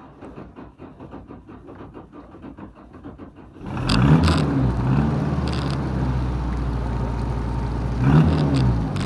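Boat engine running with an even, rapid pulse. About three and a half seconds in it is throttled up and runs loud and steady, with pitch surges at the start of the throttle-up and again near the end.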